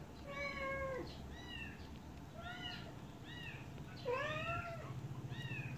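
A young kitten mewing repeatedly while being hand-fed milk from a syringe: about six short, high, arching mews, the loudest a little after four seconds in.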